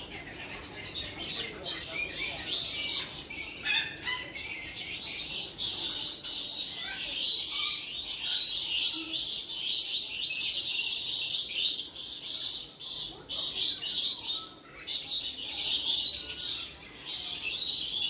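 A dense chorus of many aviary birds chirping and squawking over one another, high-pitched and continuous, with a couple of brief lulls past the middle.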